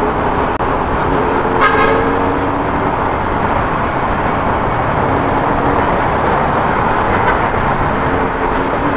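Yamaha Sniper 150's single-cylinder four-stroke engine running steadily under wind and road noise while riding in city traffic. A vehicle horn toots briefly about two seconds in.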